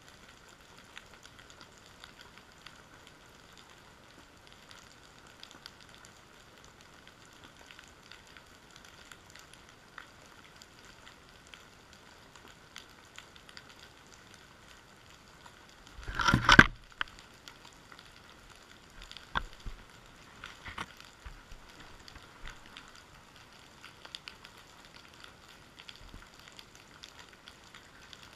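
Steady underwater crackle of fine clicks, picked up through the housing of a camera lying on the seabed. About sixteen seconds in there is one loud knock lasting under a second, followed by a few sharper clicks.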